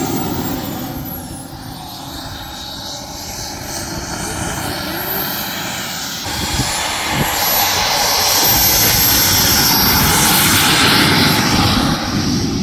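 RC model aircraft flying, a thin high whine gliding up and down in pitch; the sound swells from about six seconds in, is loudest near the end, then falls away.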